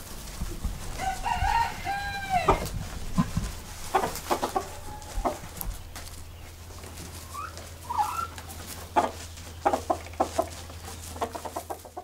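Chickens clucking, with one rooster crow lasting about a second and a half starting about a second in, over a steady low hum.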